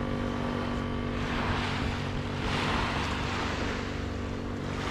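Small waves washing up on a sandy, pebbly beach in a few swells, over the steady hum of an engine running.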